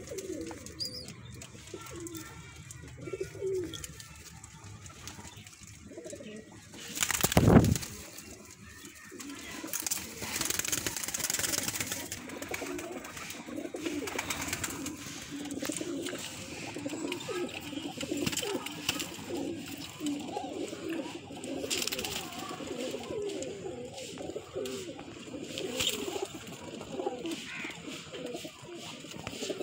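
Domestic high-flying pigeons cooing over and over in their loft. About seven seconds in there is a brief, loud rustling thump.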